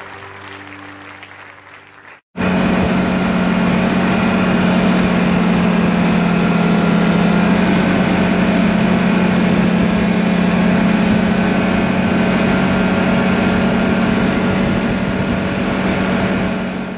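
Background music fading out for the first two seconds, then a snowmobile engine running steadily at cruising speed, a constant-pitch drone with a rushing haze of wind and track noise, cutting off abruptly at the end.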